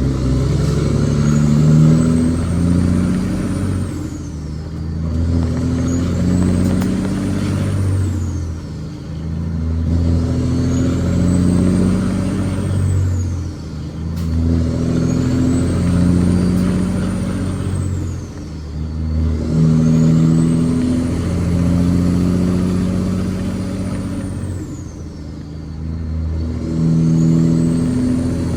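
Semi truck's diesel engine pulling up through the gears, about six pulls each a few seconds long, with a short drop at each shift. A high whistle climbs with each pull and falls away at the shift.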